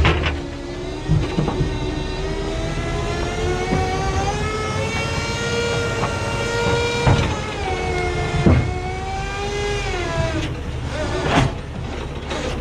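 Heavy machinery running under load: a pitched mechanical whine that climbs a little, holds, then drops about eight seconds in, with several sharp knocks and clanks.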